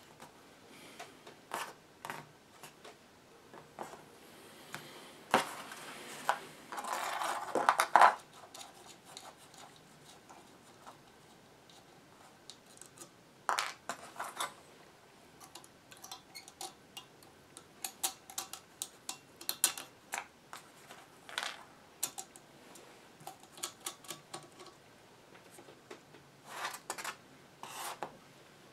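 Scattered clicks and light taps of small radio parts being handled: a tube-socket board and bare bus wires with tabs, moved about on cardboard. A longer stretch of rubbing and scraping about five to eight seconds in is the loudest part.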